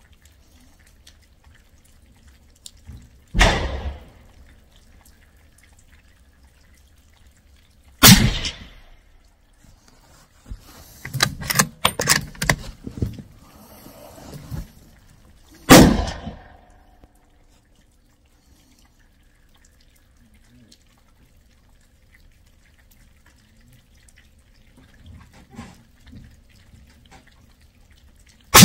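Suppressed .308 Remington 700 bolt-action rifle firing four single shots, about three, eight and sixteen seconds in and right at the end, each a sharp crack with a short echo. Between the second and third shots comes a run of metallic clicks from the bolt being worked.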